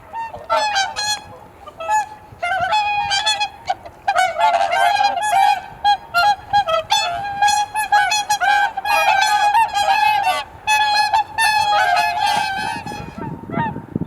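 A flock of swans calling on a pond: many overlapping short, nasal honking calls, 'kuu-kuu', densely layered for most of the stretch. Near the end the calls thin out and wind buffets the microphone.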